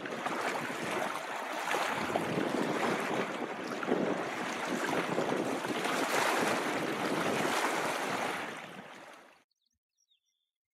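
Small wind-driven waves lapping and splashing against a rocky lakeshore, with wind blowing across it in surges. It fades out about eight seconds in, leaving silence.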